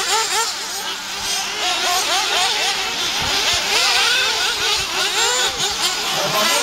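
Several radio-controlled off-road racing buggies running round a dirt track. Their small motors whine up and down in pitch as they accelerate and brake, many overlapping at once.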